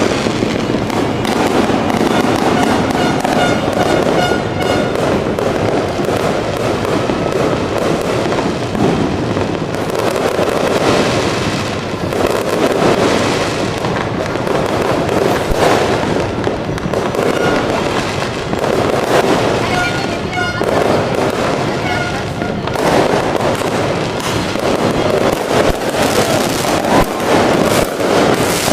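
Fireworks and firecrackers going off without a break, a dense, rapid crackle of bangs.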